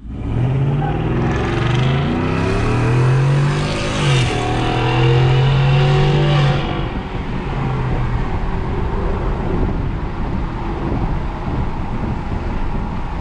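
Ford F-150's 5.0 V8 through a Corsa Extreme exhaust (Corsa Sport cat-back with the resonator deleted), accelerating hard under load and much louder with the windows down. The revs climb, drop at a gearshift about four seconds in, and hold until the driver lets off about six and a half seconds in, after which the exhaust runs more lightly.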